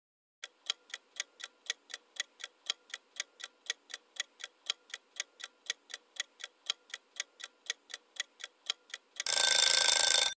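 Countdown-timer sound effect: a clock ticking evenly, about four ticks a second, then a louder alarm ring for about a second near the end as the answer time runs out.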